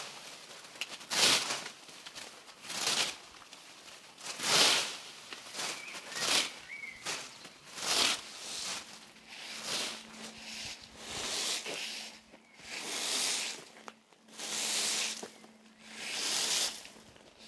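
A hedge hook swung in repeated strokes through a hedge's leaves and twigs, a swish roughly every second and a half.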